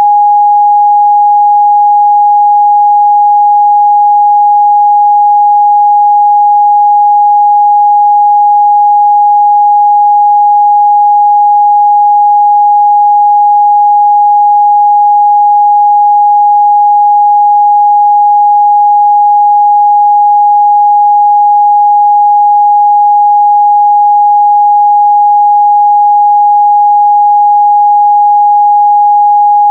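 Pure 826 Hz sine test tone, one steady unbroken pitch held at constant loudness.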